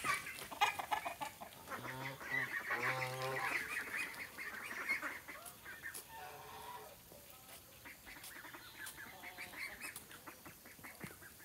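Domestic geese honking, fairly faint: a run of calls a couple of seconds in, then further bursts in the middle and later.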